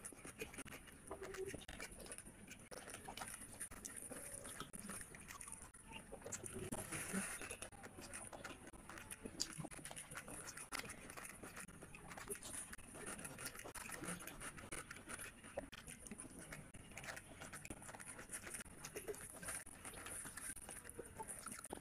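Chewing and mouth smacking from a person eating rice and curry by hand, mixed with the wet squish of fingers kneading rice on a plate: a steady run of small, faint clicks.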